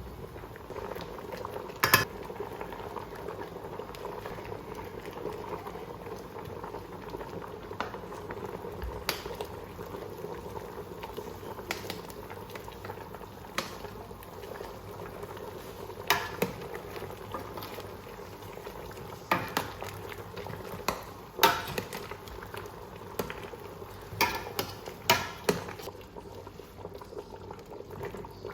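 A pot of yam porridge bubbling steadily at the boil, with a few sharp knocks or clinks scattered through, mostly in the second half.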